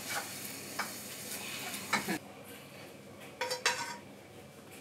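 Eggs sizzling in a hot frying pan, with a few light taps of a utensil against the pan; the sizzle stops about two seconds in. A short cluster of metal scrapes and clinks follows about three and a half seconds in as the cooked eggs are scraped from the pan into a plastic container.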